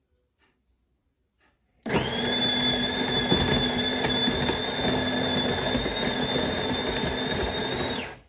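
De'Longhi Eletta Explore bean-to-cup coffee machine running: a steady mechanical whir with a high whine over a lower hum. It starts suddenly about two seconds in and cuts off near the end.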